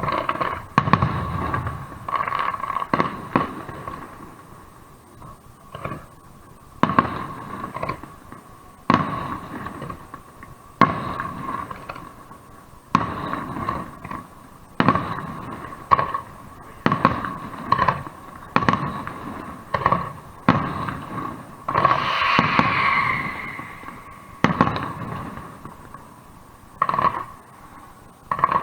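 Aerial fireworks shells bursting: a run of sharp bangs one to two seconds apart, each with an echoing tail. About three-quarters of the way through comes a longer crackling burst.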